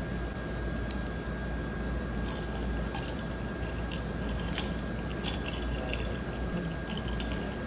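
Steady low background hum with a faint constant high tone, and scattered light clicks and taps.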